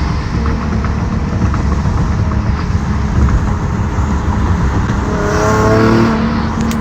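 Infiniti G37's 3.7-litre V6 exhaust running through Berk high-flow catalytic converters, a steady deep note that climbs in pitch briefly about five seconds in.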